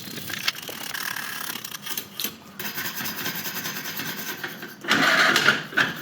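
Scratchy scrubbing on a metal motorcycle exhaust pipe as it is cleaned, with a louder rush of scrubbing noise about five seconds in.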